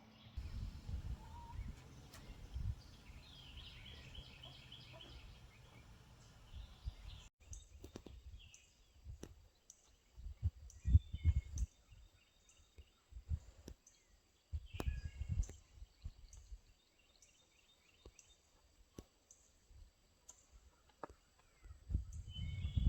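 Outdoor yard ambience: gusts of wind buffeting the microphone in uneven bursts, with small birds chirping in short repeated series.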